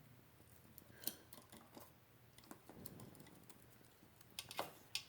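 Faint, scattered small clicks and taps, a cluster of them about four and a half seconds in.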